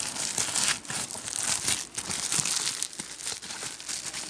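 Plastic crinkling and rustling as it is handled, a dense run of small crackles and clicks.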